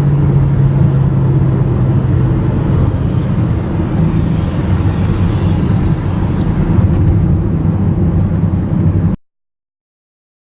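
Car on the move, a steady low drone of engine and road noise with a hum; cuts off abruptly about nine seconds in.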